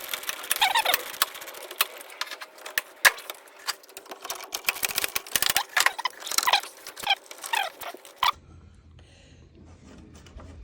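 Socket ratchet clicking in quick, uneven runs with short squeaks, as a fuse-box screw is backed out with a 5/16 socket. The clicking stops abruptly about eight seconds in, leaving a faint low hum.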